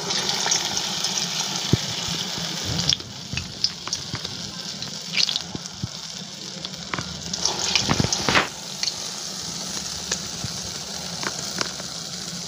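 Urad dal vadas (allam garelu) deep-frying in hot oil: a loud sizzling hiss sets in suddenly as a vada is slipped into the oil, then carries on a little softer. Scattered crackles and pops run through it, with a cluster of them about eight seconds in.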